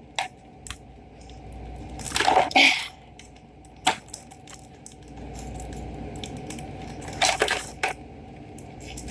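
Small plastic toy figures and their packaging being handled: a few scattered clicks and rustles over a low handling rumble.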